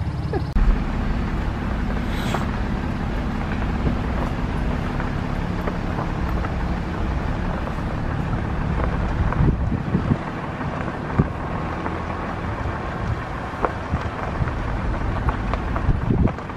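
A vehicle rolling slowly along a gravel road, a steady low engine and road rumble with wind on the microphone and occasional small ticks.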